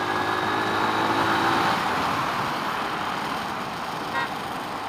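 Highway traffic noise heard from a moving motorcycle: a steady rush of wind and road noise, with a vehicle engine's steady hum that fades out about a second and a half in.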